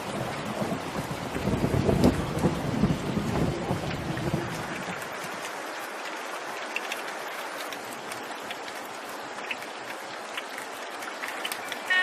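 Steady rain falling, with a low rumble of thunder about a second in that dies away by about five seconds, leaving the rain hiss with scattered drip-like ticks.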